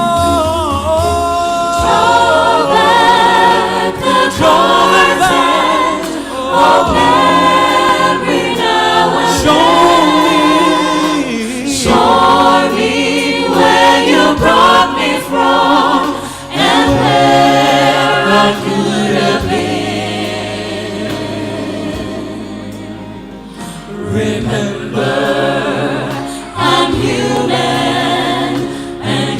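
Live gospel singing: voices hold long, wavering notes of a slow melody over steady low held notes.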